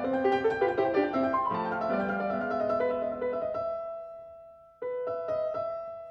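Background music on piano: a run of notes that settles into a held chord fading out, then a fresh chord struck about a second from the end and left to ring.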